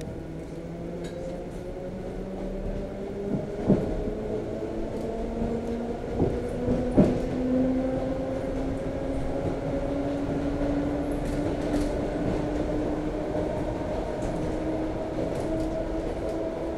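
Electric commuter train heard inside the carriage, its traction motors whining in several tones that rise slowly as the train accelerates away from a platform, over the running noise of the car. A few sharp knocks come through about four and seven seconds in.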